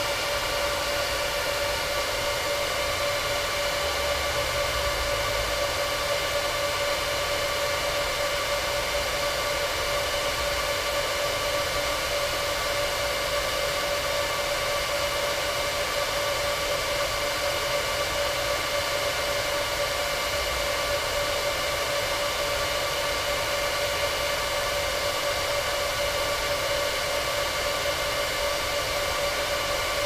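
Rack-mount server cooling fans running at full speed just after power-on: a steady, loud whoosh with a high whine. The loudest are the disk shelf's (DAS) original fans, which run flat out at start-up and only step down after a couple of minutes.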